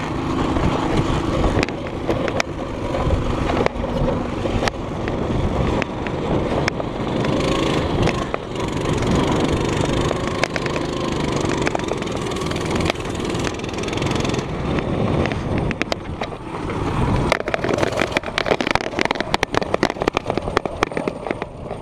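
A Coleman CT200U-EX mini bike's small single-cylinder four-stroke engine running under throttle on a dirt track, over a constant rush of noise. The frame rattles and knocks over the bumps, and the clatter becomes dense near the end.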